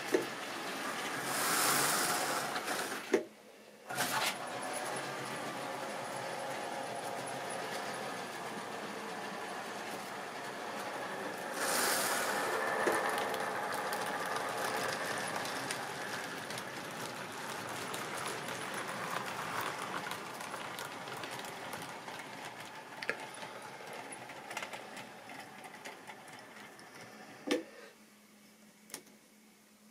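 Model railway locomotives and wagons running on sectional track: a steady whirring rattle of motors and wheels on the rails. It briefly drops out about three seconds in, swells as a rake of tank wagons passes close, then fades and stops near the end with a sharp click.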